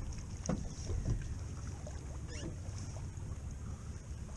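Steady low rumble of a small fishing boat on open water, with two light knocks about half a second and a second in.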